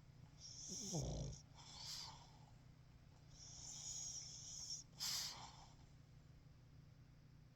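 Pug snoring: two long, wheezy snoring breaths. The first has a low grunting snort about a second in, and the second ends in a sharp snort about five seconds in.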